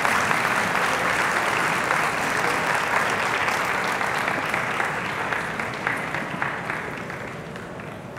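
Audience applauding, a dense patter of clapping that slowly fades toward the end.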